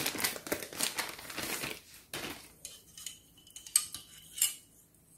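A clear plastic bag rustling and crinkling as small plastic toy ladders are handled, for about two seconds. Then a few light, scattered clicks and taps of the plastic pieces.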